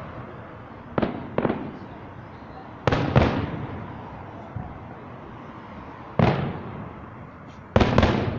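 Fireworks shells bursting: seven sharp bangs, mostly in close pairs, a couple of seconds apart, each followed by a rumbling echo that fades away.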